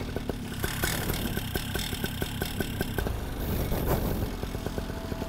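Paramotor engine idling, with a fast, irregular ticking clatter over a steady noise.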